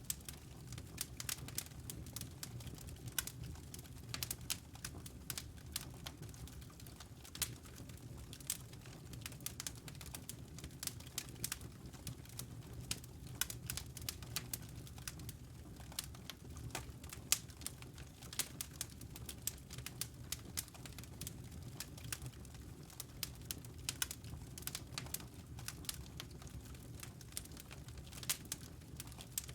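Wood logs burning in a fireplace: a steady stream of irregular sharp crackles and pops over a constant low hum.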